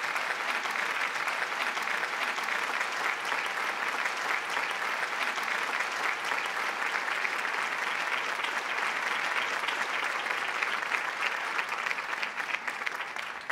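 Audience applauding: a steady, dense run of many hands clapping.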